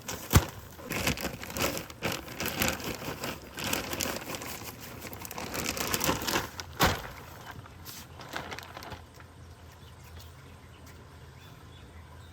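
Rustling and knocking handling noises, with a sharp knock just after the start and another about halfway, dying down to a quiet background for the last few seconds.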